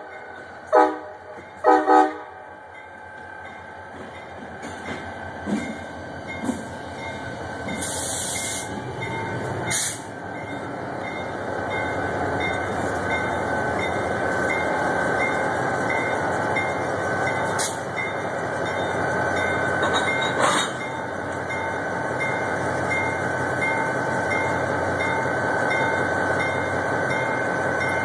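CSX diesel locomotive giving short horn toots about one and two seconds in. Its engine and running gear then grow louder as it rolls slowly past close by, with a steady high wheel squeal and a few clanks.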